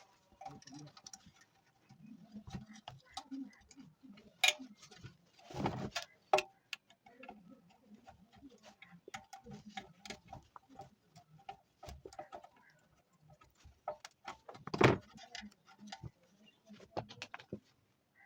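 Irregular light clicks and taps of small hard objects being handled, with a few louder knocks, the loudest about 15 seconds in.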